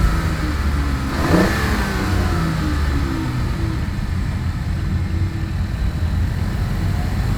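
BMW i8's turbocharged 1.5-litre three-cylinder engine heard through its stock exhaust alone, with no artificial active sound. The revs fall off in the first second, there is a brief whoosh about a second and a half in, and then the engine runs on at a lower, steadier note. It is recorded close to the muffler tip and mixed with the cabin sound.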